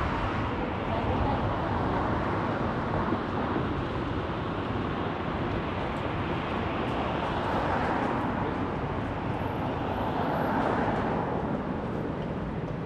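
Busy city road traffic: a steady rush of tyre and engine noise that swells a little around the middle and again later on.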